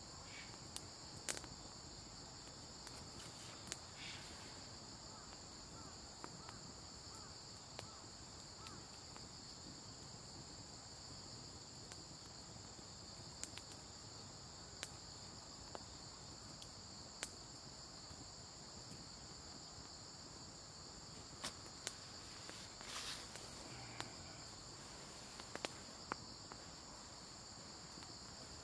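Steady high-pitched chorus of insects, with a few sharp clicks and light knocks scattered through it.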